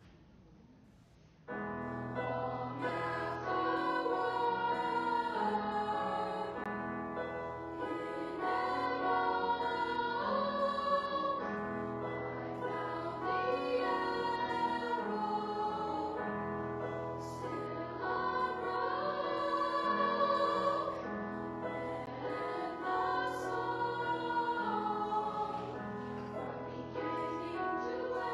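School choir singing with piano accompaniment, in held, shifting chords. The music comes in after a short near-silent pause, about a second and a half in.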